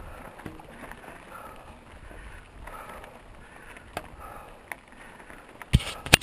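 Mountain bike rolling along a dirt trail: a steady rustling hiss that swells about once a second, then a few sharp clicks and two loud knocks about half a second apart near the end.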